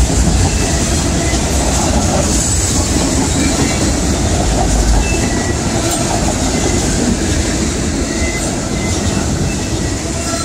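Railroad cars rolling past on the rails: a loud, steady rumble of steel wheels on track, with a few brief faint squeals.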